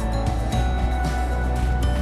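Music with a deep, sustained bass and held notes.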